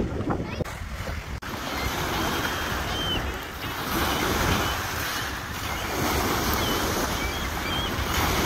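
Small lake waves breaking and washing up onto a pebble shore, in gentle surges that rise and fall.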